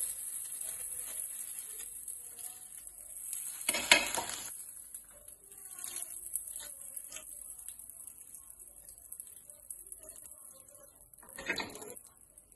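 Hot garlic and ajwain oil being strained: metal utensils and a pan clinking and scraping, with a faint steady sizzle. Louder clattering bursts come about four seconds in and again near the end.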